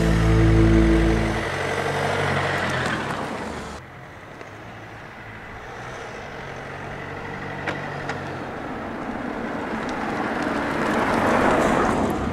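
Mercedes-Benz C-Class estate (W205) driving: engine and tyre noise swells and fades as it passes. After a sudden cut, it comes back quieter and grows steadily louder as the car approaches near the end.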